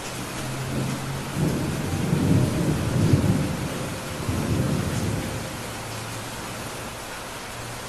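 Steady rain hissing, with a low roll of thunder rumbling in about a second and a half in, swelling, then dying away by about five and a half seconds.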